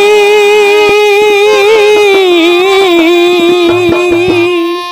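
Jhumur folk music: harmonium and voice holding one long, slightly wavering note, with hand-drum strokes coming in about halfway through. The music drops away briefly just before the end.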